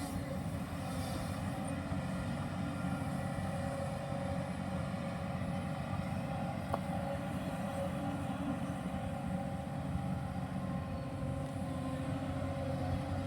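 Diesel engine of a Hyundai R215L SMART X Plus hydraulic excavator running steadily, with a single faint click about seven seconds in.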